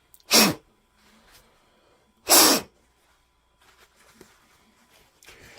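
Two short blasts of compressed air from an air blow gun, about two seconds apart, blowing cleaning fluid out of freshly cleaned motorcycle petcock parts to dry them.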